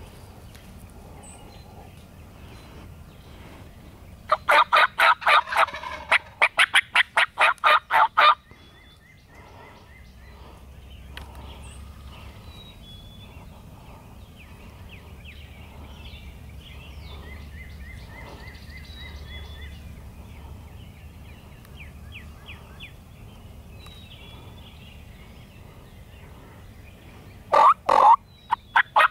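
Wild turkey toms gobbling: two loud rattling gobbles back to back about four seconds in, and another near the end, with fainter call notes in between.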